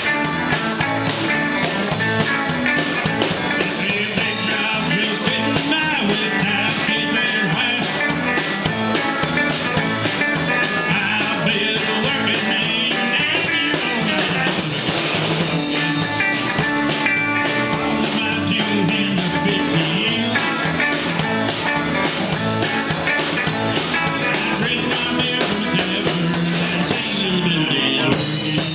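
A rock band playing with guitar and a drum kit.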